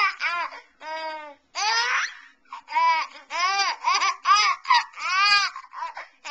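Baby laughing and squealing in a quick run of about ten short, high-pitched bursts, each rising and falling in pitch.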